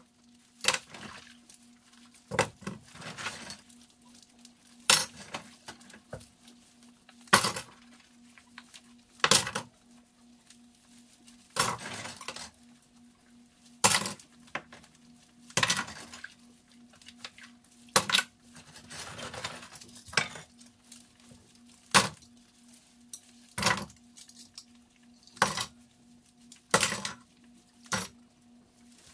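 Dishes and cutlery clinking and clattering as they are handled, a sharp clatter about every two seconds, over a faint steady hum.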